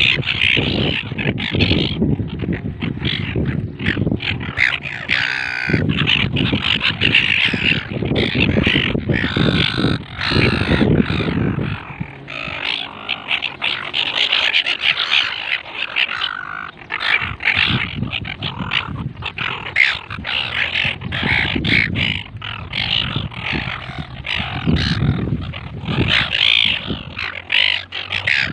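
A flock of gulls calling and squawking continuously, many harsh overlapping calls at once. A low rumble runs beneath them through the first half.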